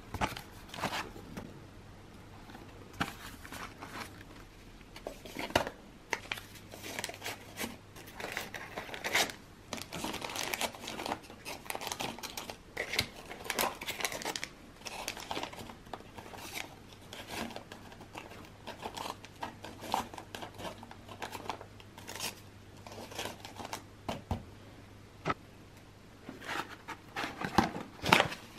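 Paper tea bag sachets rustling and crinkling as they are handled and slid into the compartments of a tea box, with irregular light taps and clicks throughout.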